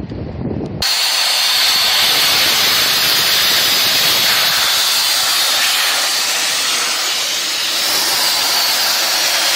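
Loud, steady hiss with no clear pitch, cutting in abruptly about a second in.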